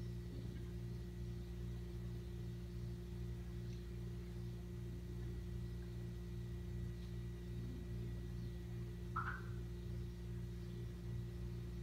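A steady low hum with a thin, steady high tone above it, and one brief faint squeak about nine seconds in.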